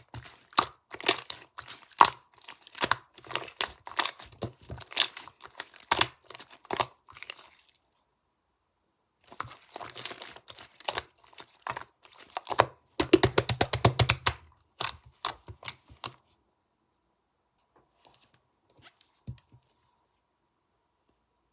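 Close crackling and crinkling handling sounds made of many sharp clicks in quick clusters, pausing about 8 seconds in, resuming with a fast run of clicks, then dying away to a few faint ticks near the end.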